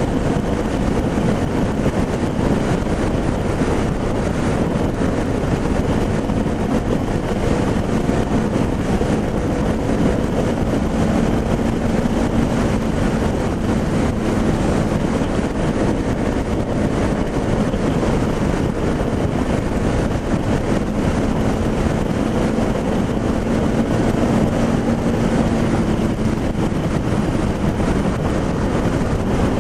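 Motorcycle engine running at a steady cruising speed, mixed with wind noise on the camera's microphone.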